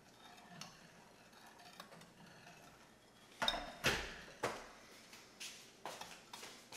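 Wire whisk clinking and scraping against a glass baking dish while stirring liquid jello mix. Faint at first, then a few uneven clinks about halfway through, the loudest together, followed by lighter taps.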